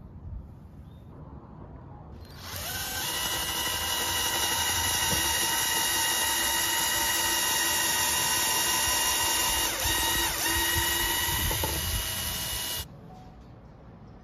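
Cordless drill boring a pilot hole into a wooden slat: the motor spins up about two seconds in, runs at a steady whine for about ten seconds with two brief dips near the end, then stops abruptly.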